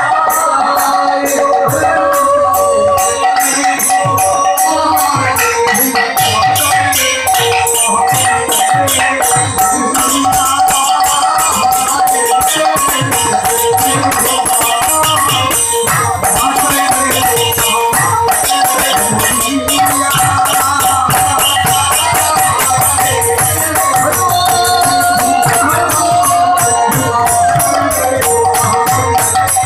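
Bengali padabali kirtan music: a fast, even run of clinking percussion strokes over drum beats, with a held melody line above.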